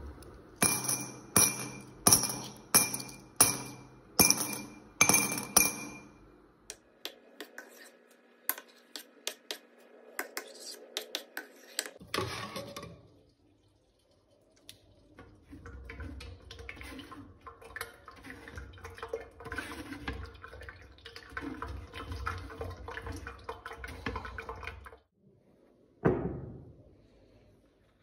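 About eight sharp, ringing clinks over the first six seconds as a personal blender cup is tapped against a drinking glass to empty a frothy blended drink, followed by lighter clicks. Later, a metal ladle scrapes and clinks against metal pots while skimming foam off blended fruit juice, with liquid sounds, and a single knock near the end.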